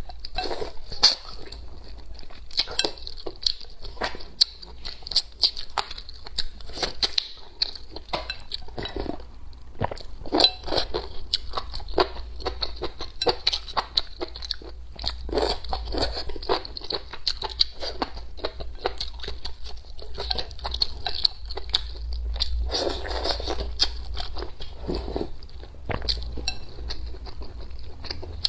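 Close-miked eating: a person chewing and crunching food, a steady run of short, irregular crunchy bites.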